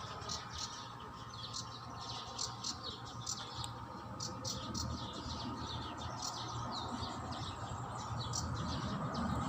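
A flock of lovebirds chirping continuously: many quick, overlapping high chirps over a steady low background rumble.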